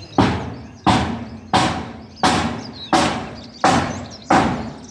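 Steady hammering on iron roofing sheets: seven evenly spaced blows, about one every 0.7 seconds, each ringing briefly as it dies away.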